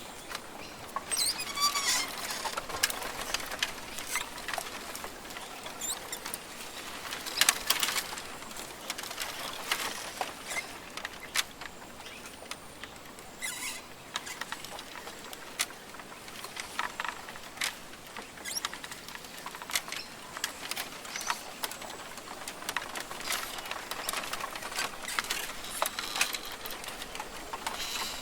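Rainforest ambience: a steady hiss scattered with many irregular clicks and rustles, and a few brief high bird calls.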